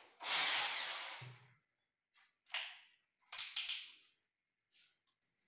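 Handling noises from fitting a kitchen roller shutter into a cabinet: a rasping scrape about a second long at the start, then a few short knocks and clicks.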